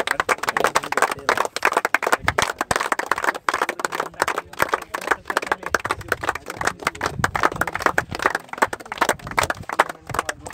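A small crowd clapping, many quick claps overlapping without a break.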